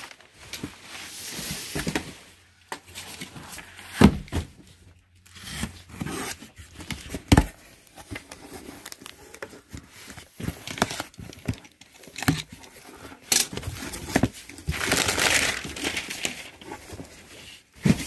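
Crumpled packing paper rustling and crinkling as cardboard boxes are unpacked, with several sharp knocks of the boxes being handled and packing tape being cut and torn.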